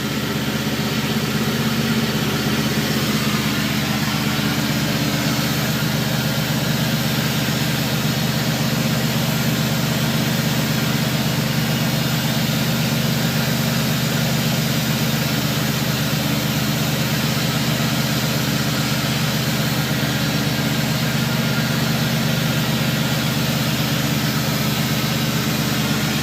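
An engine idling steadily, an even low hum with no change in speed.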